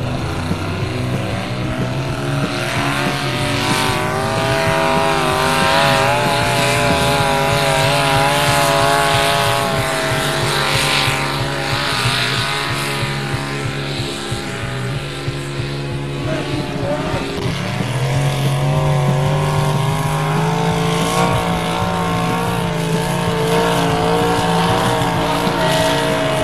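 Competition pulling engines running at full throttle as they haul a weight-transfer sled. The engine pitch wavers up and down under the changing load.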